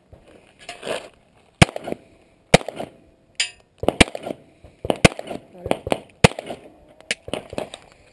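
9mm Glock pistol firing single shots at uneven intervals, roughly one a second, with two shots in quick succession near the middle.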